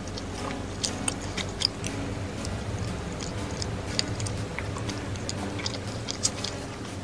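A person chewing a mouthful of soft dessert close to the microphone, with many small wet mouth clicks scattered through, over a low steady hum.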